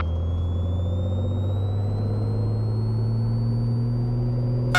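Cessna 182T's six-cylinder Lycoming engine and propeller at full takeoff power at the start of the takeoff roll, a steady low drone that edges slightly up in pitch. A thin whine rises steadily in pitch throughout.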